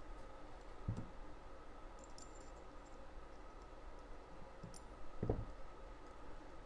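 Faint handling of small metal parts and a hand hex driver while assembling a thrust bearing stack: a few tiny clicks, with a soft knock about a second in and another a little after five seconds.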